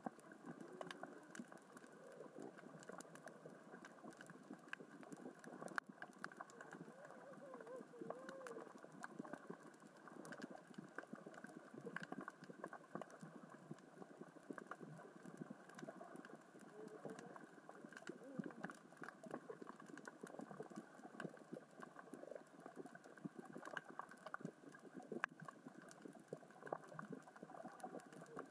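Faint underwater crackle of small rocks rolling and knocking across the sea floor as the current and tide move them: a dense, continuous patter of tiny clicks. A few faint wavering tones come and go within it, clearest about a quarter of the way in.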